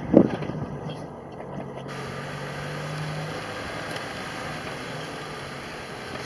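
A vehicle engine running steadily, heard as a low hum with a faint tone that swells and fades, after a brief rush of noise right at the start.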